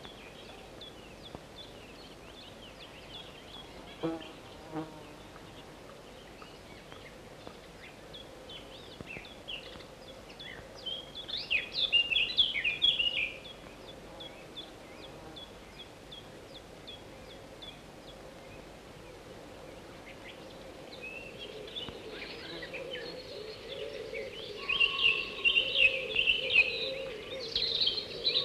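Chickadees giving a series of short, high, thin calls, rising to louder bursts of rapid chittering about 11 seconds in and again from about 24 seconds in.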